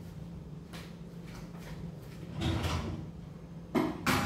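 A kitchen drawer sliding with a low rumble about halfway through, then two sharp knocks as it is handled and shut near the end.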